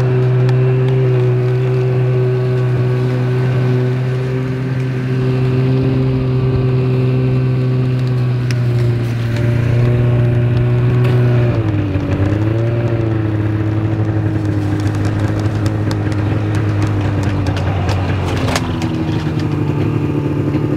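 Snowmobile engine running at a steady speed while riding. Its pitch dips briefly about twelve seconds in and again near the end, as the throttle eases off.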